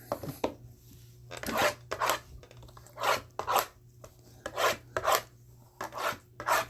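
Cardboard and wrapper packaging of trading-card boxes being worked open by hand: a series of short scratchy rasping strokes, about eight, coming roughly in pairs.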